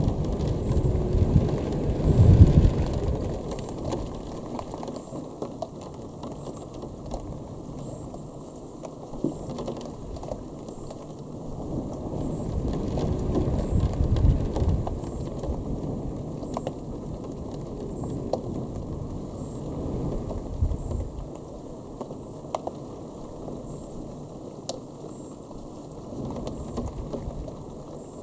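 Distant thunder rolling and rumbling low, swelling loudest near the start and again about halfway through, then dying away.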